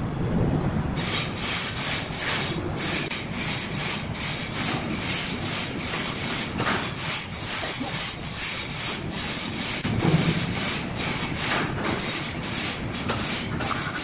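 Rhythmic scraping strokes against a sawn red hardwood slab, about three a second, starting about a second in, over a low background rumble.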